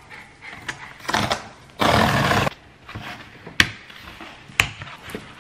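Cardboard shipping box being torn open by hand: a short rip about a second in, then a loud tearing rip lasting most of a second, followed by two sharp snaps of cardboard.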